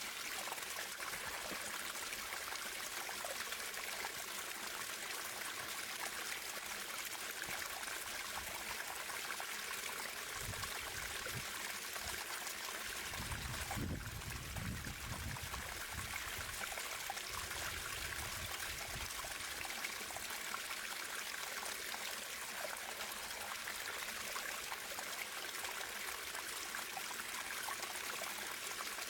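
Running water: a stream flowing steadily with a splashy, trickling hiss. A low rumble comes in about ten seconds in and fades out near the twentieth second.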